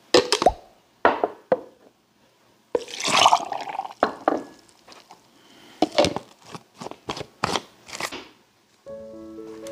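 Cooked rice and ginger tipped from small ceramic bowls into a plastic blender cup, with a series of sharp knocks and taps of bowls and cup. Water is poured in about three seconds in. Light background music comes in near the end.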